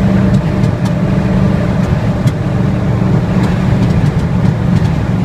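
Early Ford Bronco's engine running under load in third gear at highway speed, heard from inside the cab with road noise, steady and loud with a misfire that comes on climbing a hill and clears when shifted down to second.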